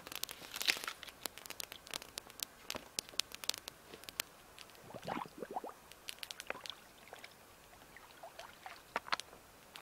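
Dry twigs and forest litter snapping, crackling and rustling, heard as irregular sharp clicks, busiest in the first half and thinning out later.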